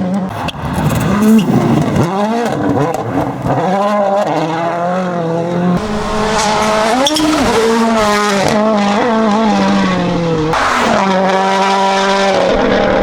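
Toyota Yaris WRC rally car's turbocharged 1.6-litre four-cylinder engine revving hard, its pitch climbing and dropping again and again through gear changes and lifts, with a few sharp pops in the first couple of seconds.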